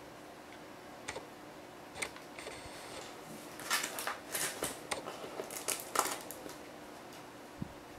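Cardboard toy-box insert and a plastic-tied cable being handled: a couple of light clicks, then a cluster of rustling, crackling scrapes lasting about three seconds in the middle.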